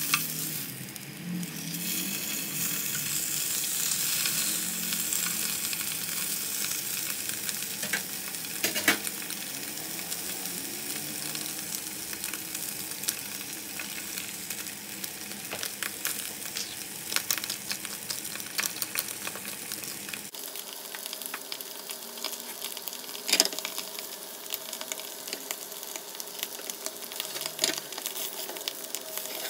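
Salmon fillets sizzling in a non-stick frying pan with no oil: a steady hiss with scattered sharp clicks and pops.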